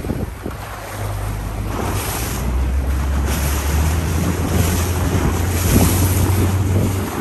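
Outboard-powered motorboat running over open sea: a steady low engine drone with the rush of water along the hull and wind buffeting the microphone, growing a little louder after about a second.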